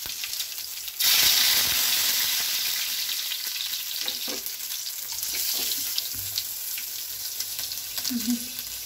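Hot oil sizzling in a frying pan; about a second in, something is dropped into it and the sizzle jumps sharply louder, then slowly dies down, with a few light clicks along the way.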